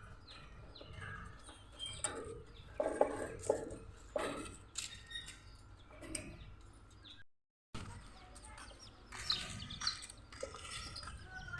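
Domestic chicks peeping faintly now and then, with a few soft knocks. The sound cuts out completely for a moment about seven seconds in.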